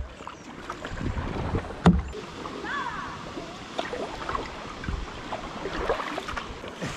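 Kayak paddle strokes: the blades dipping and splashing in calm river water, with irregular drips and swishes. A single sharp click comes about two seconds in.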